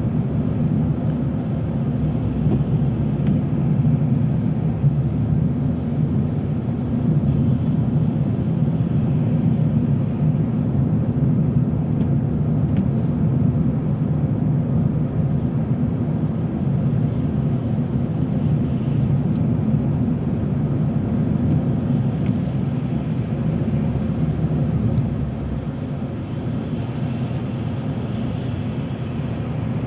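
Steady drone of a car's engine and tyres heard from inside the moving car, easing a little near the end.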